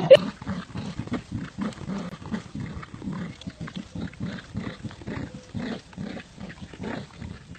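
Dogs growling in play while tugging on a toy: a steady run of short, low growls, several a second.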